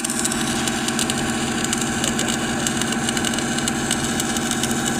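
An engine running steadily at an even speed, with a dense irregular crackle over it.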